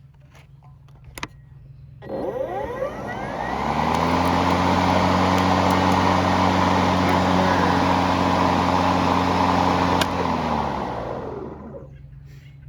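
Ego battery-powered electric lawn mower with a newly installed blade, spinning up with a rising whine about two seconds in, running steadily, then winding down near the end after it is switched off.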